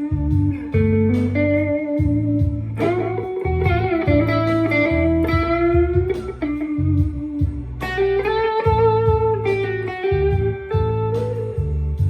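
Electric guitar played through a Belcat Blues Drive overdrive pedal: a blues lead line of sustained, bent notes with vibrato, over a steady low bass part.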